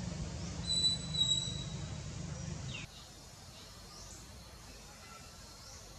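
Outdoor background noise with a steady low rumble and two short high chirps about a second in. Near the middle it drops abruptly to a quieter background with faint high chirps.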